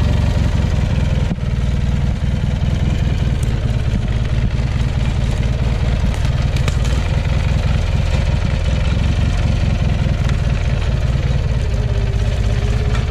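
Off-road-modified Craftsman lawn tractor's engine running steadily at an even speed as it crawls over rough dirt, with a few brief knocks.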